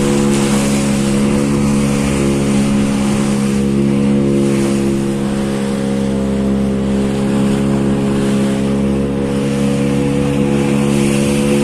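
An engine running steadily at an even speed, over a constant rushing hiss.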